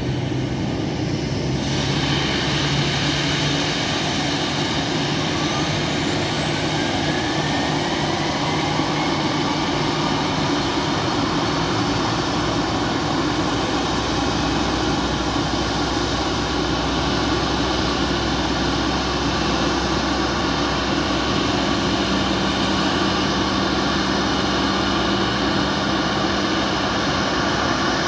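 Boeing 737 MAX 8's CFM LEAP-1B turbofan starting: a steady rush of jet noise with a whine that rises in pitch over the first ten seconds or so as the engine spools up.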